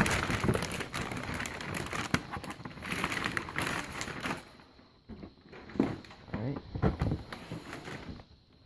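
Handling of a shoe box and its paper packing: crinkling, rustling and light knocks, busy for the first half and sparser and quieter after about four and a half seconds.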